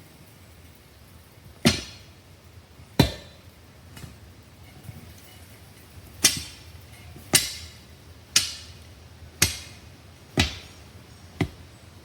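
A series of eight sharp knocks. Two come a little over a second apart, then after a pause six more come at about one a second, each ringing out briefly.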